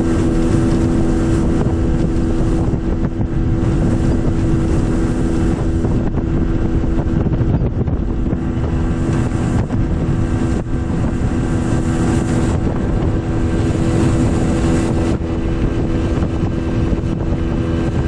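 30 hp outboard motor driving a small motorboat at speed, a steady drone that holds the same pitch throughout. It is mixed with rushing water from the hull and wake, and wind buffeting the microphone.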